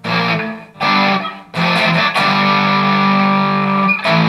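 Electric guitar played with heavy distortion, a Dean Razorback through a Marshall amp. Two short chords are struck and cut off, then a chord is held and rings for about two and a half seconds, with a new strike near the end.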